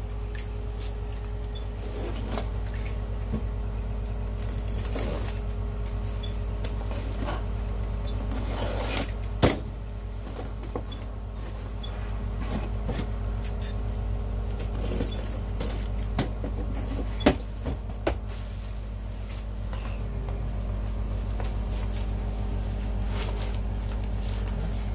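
A cardboard shipping box being unpacked by hand: plastic wrap and packing rustling, cardboard flaps handled, with scattered clicks and knocks, the sharpest about nine seconds in. A steady low hum runs underneath throughout.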